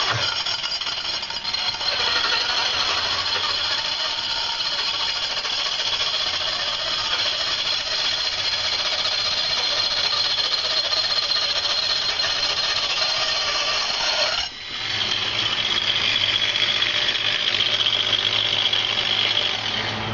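Angle grinder fitted with a TCT saw blade running, with a steady high whine over a rattly noise; it drops out briefly about two-thirds of the way through, then picks up again.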